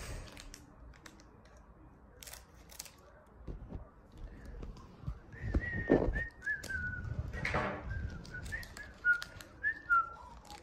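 Whistling: a run of short, wavering notes that step gradually down in pitch, starting about five seconds in. Under it, a couple of bursts of rustling from a trading-card pack's wrapper being opened.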